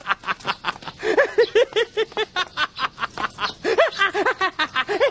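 High-pitched laughter: quick runs of short, rising-and-falling 'ha' sounds, about five a second, broken into several runs.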